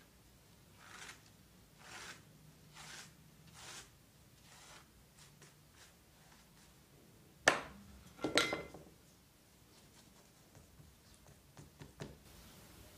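Paintbrush brushing and dabbing paint onto a paper relief copy of a khachkar: faint soft swishing strokes about once a second. About seven and a half seconds in comes a sharp knock, then a short clatter with a brief ring.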